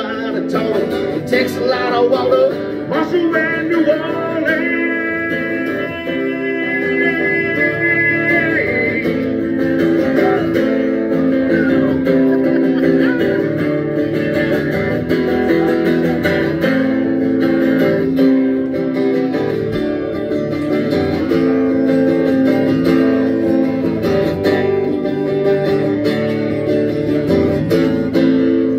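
Acoustic guitar strummed steadily in the song's instrumental outro, chords ringing on after the last sung line.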